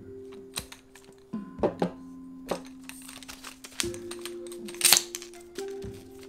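Background music with held notes, over a series of sharp clicks and knocks as a tripod stool's legs are folded together and retracted. The loudest knock comes near the end.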